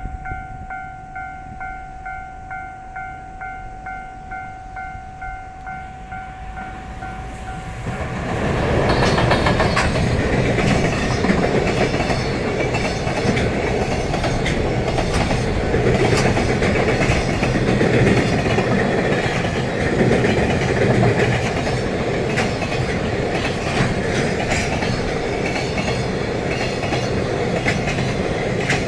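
Japanese level-crossing alarm bell ringing about twice a second. About eight seconds in, a JR Freight EF210 electric locomotive and its train of Koki container flatcars pass close by, and the loud rumble of wheels and clickety-clack over the rail joints drowns out the bell.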